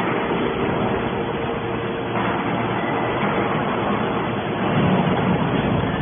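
Hydraulic scrap-metal baler running: a steady machine noise with a constant hum, growing a little louder about two seconds in and again near five seconds.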